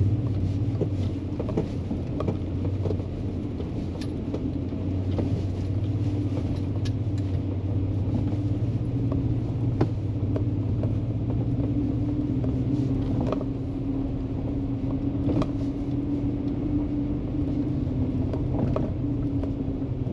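Vehicle engine running at a steady pace over a rough trail, a low even hum broken by scattered knocks and rattles.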